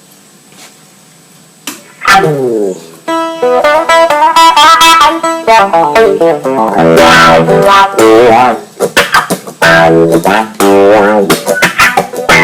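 Clean electric guitar played through a Dunlop Cry Baby 535Q wah pedal set to its first mode, with a Clarostat potentiometer in place of the stock Hot Potz. The notes and chords begin about two seconds in, and the wah sweeps their tone up and down.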